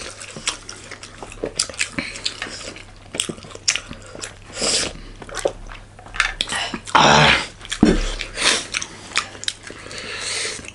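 Close-miked chewing and biting: a run of wet mouth clicks and smacks from people eating, with a few louder, longer bursts about halfway through and near the end.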